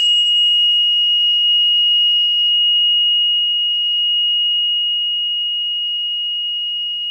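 A steady, high-pitched electronic tone, one pure whistle-like pitch that starts abruptly and holds unchanged, fading slightly toward the end.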